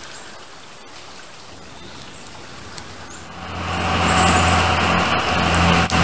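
A steady engine drone fades up about halfway through and then holds, low and even. Before it there is only quiet background.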